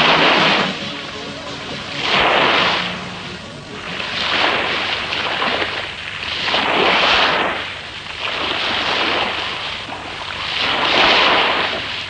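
Sea surf sound effect: rushing waves swelling and fading about every two seconds.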